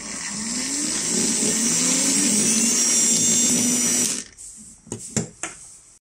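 Small brushed DC motor on a ride-on toy's plastic gearbox, powered from the battery adapter, spinning up with a rising pitch and running steadily with a high whine for about four seconds, then stopping. A few light knocks follow near the end.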